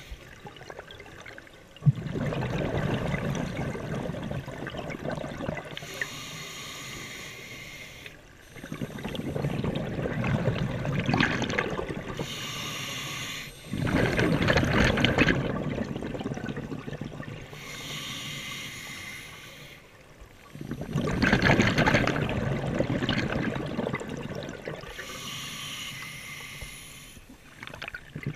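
Scuba diver breathing through a regulator underwater: four long bubbling exhalations, each followed by a shorter hissing inhalation, a breath every six or seven seconds.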